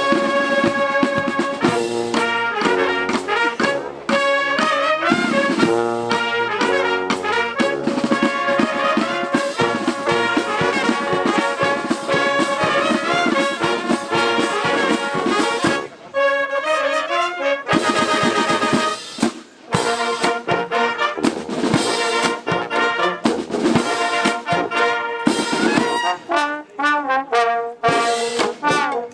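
A marching show band's brass section playing a tune in sustained, changing chords, with trumpets, trombones and sousaphones. The playing breaks off twice, briefly, about two-thirds of the way through.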